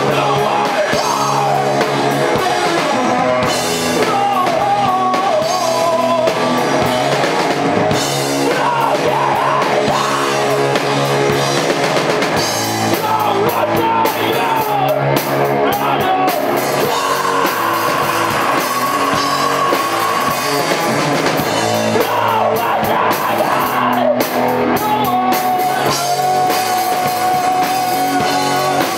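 Live rock band playing a song: drums, guitar and bass with a singer, recorded loud from the room.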